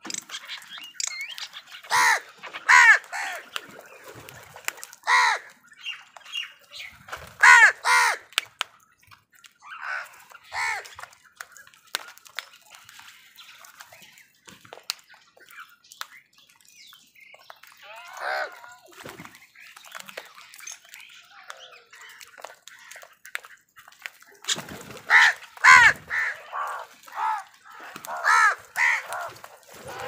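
A flock of house crows cawing while feeding: harsh caws come singly every few seconds, then a quicker run of caws near the end.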